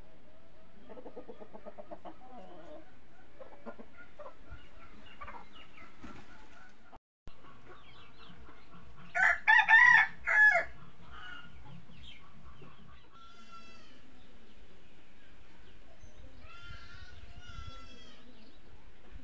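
Rooster crowing once, about nine seconds in, in several short loud phrases. Softer chicken calls come before and after it.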